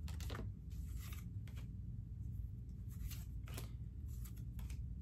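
Pokémon trading cards being slid one behind another in the hand: about half a dozen brief, soft swishes and flicks of card against card, spread unevenly, over a steady low hum.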